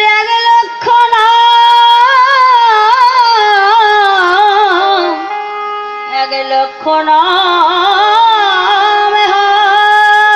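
A woman singing a devotional-style melody into a microphone in long, ornamented held notes that waver and glide, over steady sustained instrumental tones; the singing pauses briefly just after the middle.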